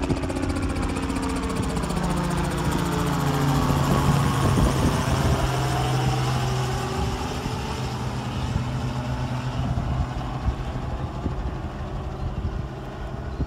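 An engine passing close by: a steady drone that grows loudest about four seconds in, drops in pitch as it goes past, then slowly fades.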